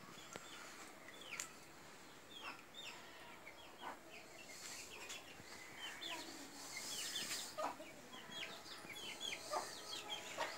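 Chickens calling: many short, high chirps and clucks scattered irregularly, some sharper and louder than others.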